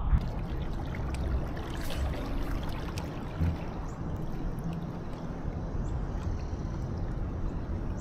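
Water lapping and trickling against a fishing kayak's hull, over a steady low rumble.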